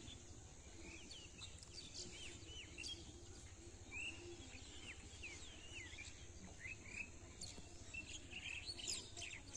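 Birds chirping and calling: many short, high calls that rise and fall, coming thicker near the end. They are faint, over a low steady rumble.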